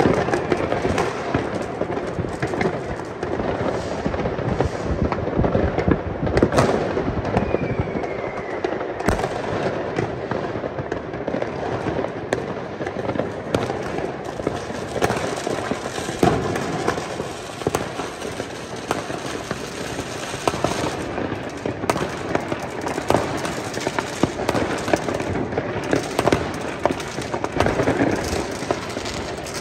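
Many fireworks and firecrackers going off at once: a dense, continuous barrage of bangs and crackles, with a short falling whistle about seven seconds in.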